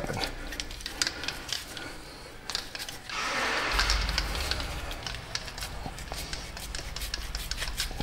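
Clicks and small metal rattles of a seized hand-held air tool being worked by hand, with a hiss about three seconds in. The tool is all seized up, its trigger sticking.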